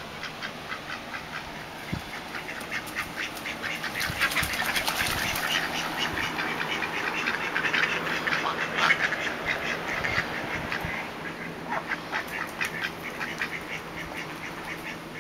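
Several domestic ducks quacking in quick, overlapping runs, growing louder and busier in the middle and easing off near the end.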